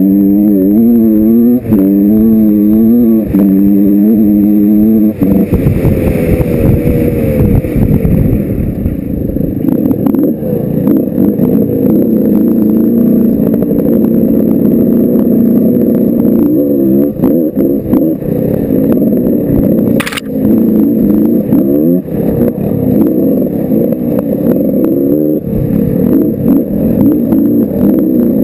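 Big-bore Yamaha YZ125 two-stroke dirt bike engine heard from the bike itself while riding a trail. The revs rise and fall repeatedly for the first five seconds, then the sound turns rougher and denser, with many short knocks.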